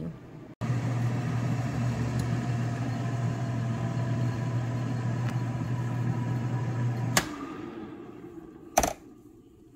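Countertop air fryer oven running on bake, a steady fan-and-motor hum with a low drone. About seven seconds in, a sharp click as the door is opened, then the hum dies away, and another click follows near the end.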